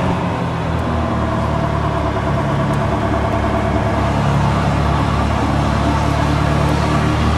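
Ford Ranger pickup's engine running hard during a burnout. Its pitch drops a little in the first second, then holds steady.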